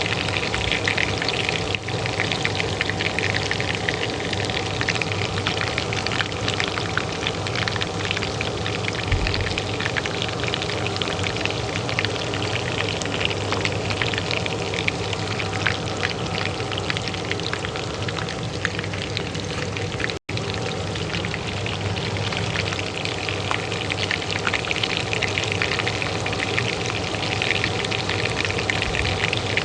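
Oil frying in a pan, a dense, steady crackle, under the steady hum of a kitchen range hood fan. The sound cuts out for an instant about twenty seconds in.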